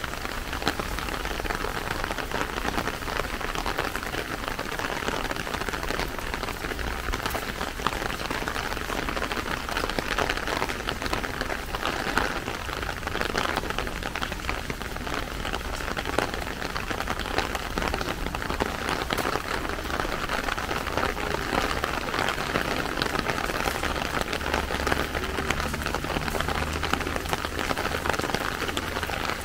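Steady rain falling, a continuous hiss dense with the patter of individual drops.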